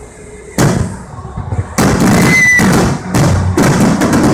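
Fireworks going off: a sudden loud bang about half a second in, then from about two seconds on a dense run of bangs and rapid crackling.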